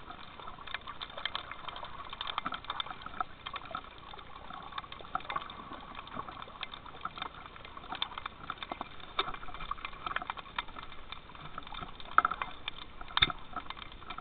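Underwater sound picked up by a handheld camera: a continuous crackle of short clicks over a hiss of moving water, with a few louder clicks and splashes near the end.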